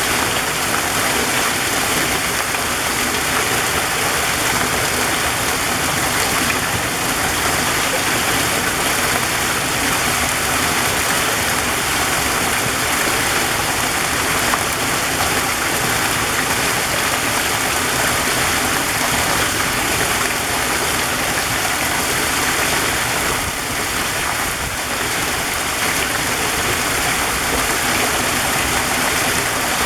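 Waterfall: water pouring down in a steady, unbroken rush.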